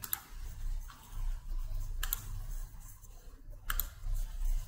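Computer mouse clicking three times at spaced intervals while selecting an item on screen, over a faint steady low hum.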